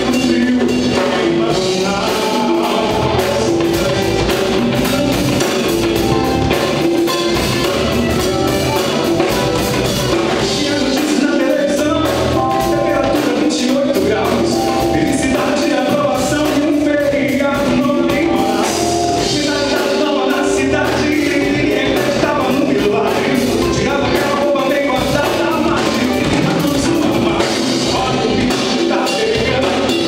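A live band plays a song: a male singer over guitars, a drum kit and percussion.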